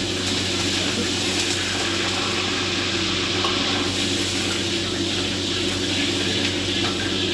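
Steady rush of running water, with a steady low hum underneath.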